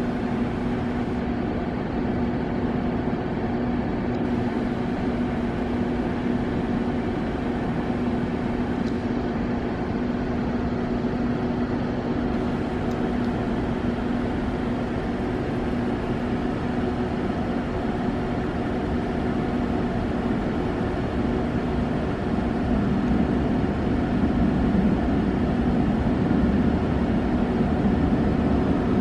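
Steady drone of an underground metro platform's ventilation, with two low humming tones over a hiss. About 22 seconds in it gets a little louder as a low rumble builds underneath.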